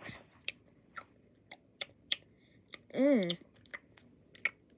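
Mouth-made eating sound effects: a run of irregular chewing and smacking clicks, with one short rising-then-falling hummed "mmm" about three seconds in.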